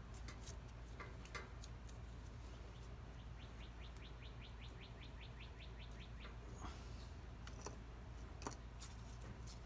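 Faint bird trill: a rapid run of short rising notes, about eight a second, starting about three seconds in and lasting nearly three seconds. Scattered faint clicks sound around it.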